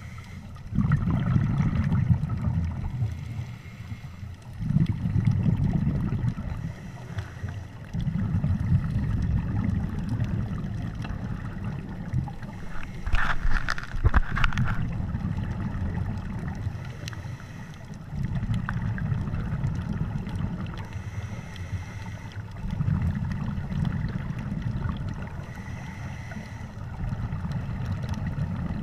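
Scuba diver breathing through a regulator, recorded underwater: low bubbling bursts of exhaled air come every four or five seconds, with quieter pauses between them. A brief higher hiss comes about halfway through.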